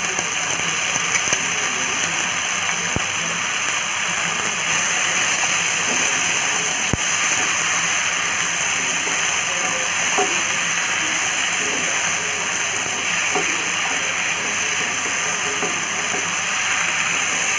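Mixed vegetables sizzling steadily in hot oil in a nonstick kadai as they are stirred with a wooden spatula, with a couple of faint knocks of the spatula against the pan.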